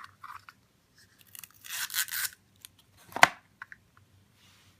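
Packaging being handled and torn open: a rustling, tearing burst about two seconds in, then a sharp knock just after three seconds, with a few small clicks around it.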